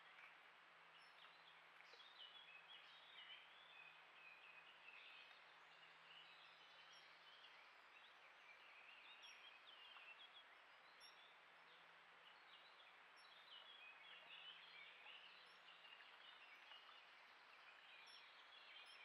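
Near silence: faint outdoor ambience of steady hiss with distant birds chirping on and off.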